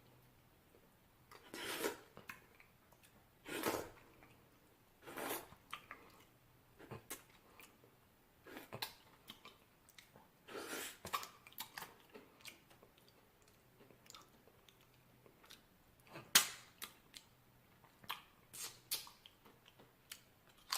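Irregular short rustling bursts and small clicks close to the microphone, the loudest about sixteen seconds in, over a faint steady hum.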